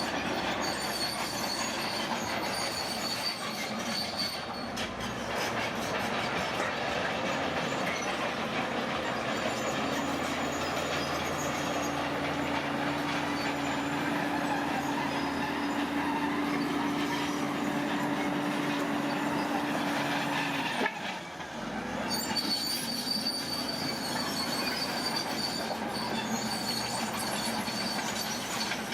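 Heavy earthmoving machinery working, a steady mechanical roar with a thin, high, steady squeal of metal. A low steady tone joins about a third of the way in and cuts off suddenly about two-thirds through.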